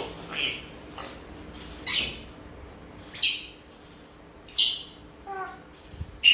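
Congo African grey parrot giving a series of short, sharp high-pitched calls, about one every second and a half, with a brief lower, voice-like note near the end.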